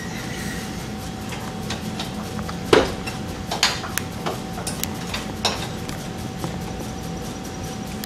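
Scattered metallic clinks and knocks from an engine hoist's chain and load leveler as it is adjusted, the loudest about three seconds in, over a faint steady hum.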